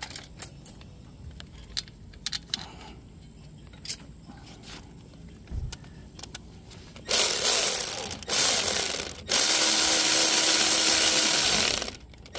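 A few light clicks of screws and parts being handled, then a Milwaukee cordless ratchet running in three stretches, about a second, a second and two and a half seconds long. It is driving in the screws that hold the electronic parking brake motor onto the rear brake caliper.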